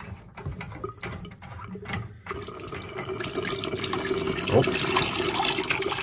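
Water pouring in a steady stream from the opened hot-water service port of a tankless water heater into a stainless steel bowl, draining the water trapped in the heater. A few light clicks come first, and the pour sets in about two seconds in and grows louder.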